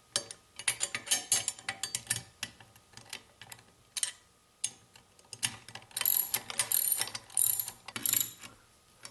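7/16 socket ratchet clicking in quick bursts as it tightens the hex nuts that hold an ice auger's ripper blade, with pauses between strokes.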